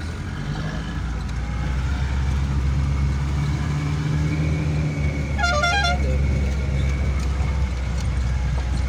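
Jeep engine running steadily, heard from inside the cab on a rough dirt track. About five and a half seconds in, a horn gives one short warbling toot lasting under a second.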